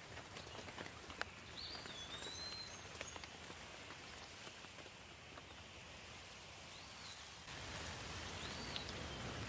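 Rain falling steadily, with scattered sharp drips and a few short bird chirps; the rain gets a little louder about three quarters of the way through.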